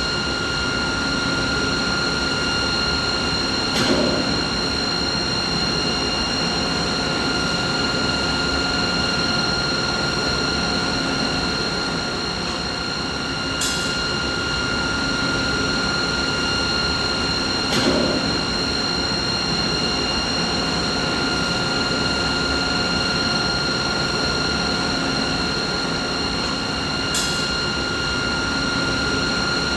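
Steady machinery noise: a continuous mechanical hum with a constant high whine and its overtones, broken by a brief click or knock four times.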